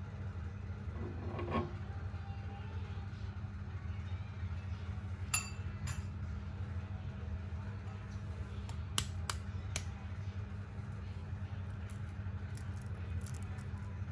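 Metal spoon and knife clinking a few sharp times against a small frying pan while quail eggs fry, with fainter taps near the end as a knife cuts into a quail egg shell. A steady low hum runs underneath.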